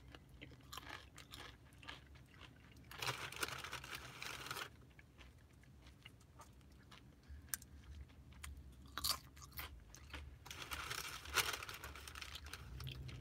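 A person chewing crisp chips close to the microphone: two longer spells of crunching, about three seconds in and again near the end, with scattered small crunches between.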